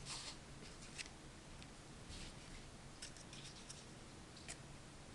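Faint scraping and a few sharp clicks from a plastic condiment cup being handled in a homemade loading press. The sharpest click comes about a second in, a cluster follows around three seconds, and another near four and a half.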